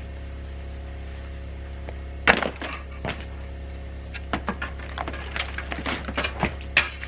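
Ice being broken off a metal roof: one loud crack a little over two seconds in, then a quick run of smaller cracks and clattering knocks as chunks break and fall.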